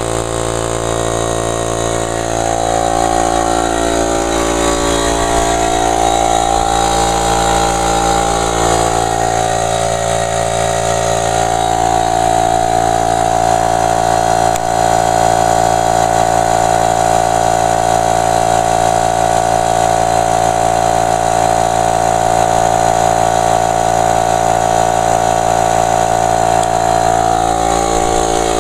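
Craftsman 1.5 hp, 3-gallon direct-drive, oil-lubricated air compressor running with a loud, steady drone as its pump builds tank pressure toward the roughly 120 psi cut-out.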